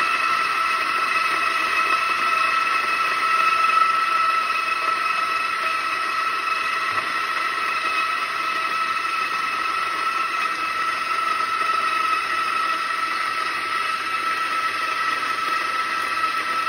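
Compak K3 flat-burr espresso grinder's motor and burrs running steadily, grinding a 17-gram espresso dose into a portafilter; a steady whining hum.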